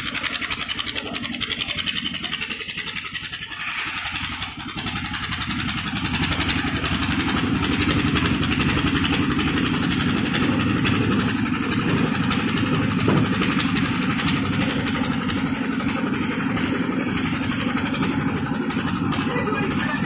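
Engine of a portable concrete mixer running steadily while the drum turns and the loading skip is worked. The engine note becomes louder and fuller about six seconds in.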